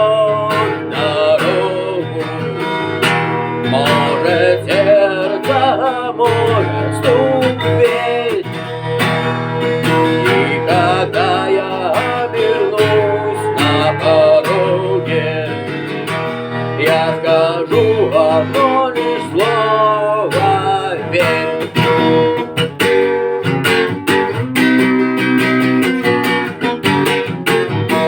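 Music: an acoustic guitar strummed steadily, with a melody line over it that bends up and down in pitch.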